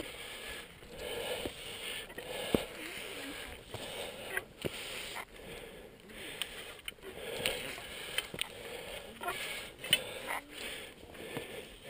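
A climber's heavy breathing close to the microphone, coming in repeated swells roughly once a second, while pulling up a steep cable route. A few sharp knocks break in, the loudest about two and a half seconds in and again near ten seconds.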